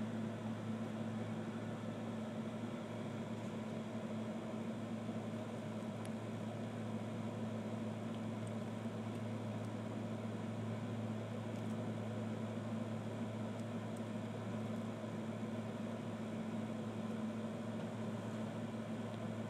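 A steady low hum with an even hiss behind it.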